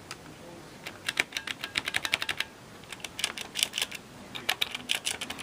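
Keys of a Cherry G80-series mechanical keyboard being pressed in quick runs of sharp clicks, starting about a second in, with a short break halfway and a few scattered presses near the end.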